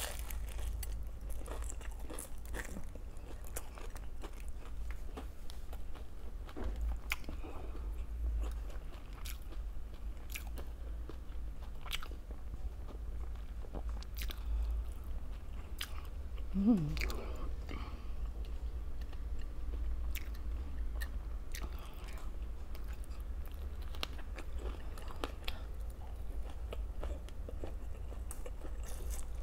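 A person eating close to the microphone: chewing and crunching food, with many short sharp clicks of bites and mouth sounds. About 17 seconds in there is one brief hum from the eater's voice.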